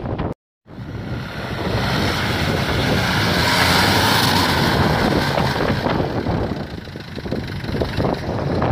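Lifted off-road SUV on oversized mud tyres, its engine running under load as it crawls over a dirt mound, with heavy wind buffeting the microphone. The sound cuts out briefly near the start, then builds up and stays loud.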